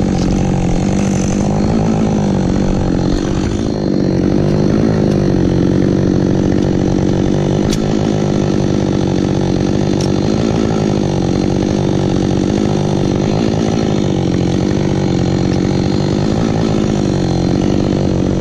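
Chainsaw running steadily at high revs, its pitch wavering slightly now and then.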